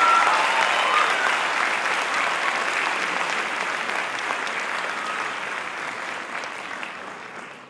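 Audience applauding, the clapping slowly fading and dropping away at the very end. A last held note of the music dies away in the first half-second.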